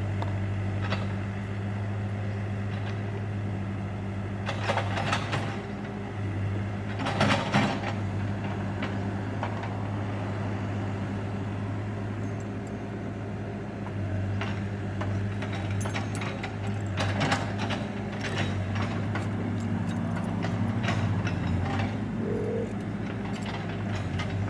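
Backhoe engine running steadily, with several loud clanks and clatters from the machine working.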